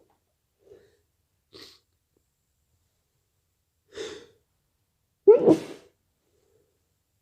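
A person sneezing deliberately (an induced sneeze): two faint breaths early on, a sharp breath in about four seconds in, then one loud sneeze a little after five seconds.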